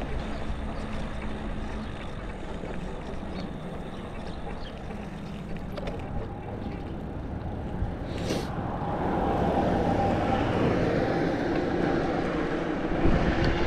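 Steady wind and road noise from riding an electric bike, swelling louder about two-thirds of the way through.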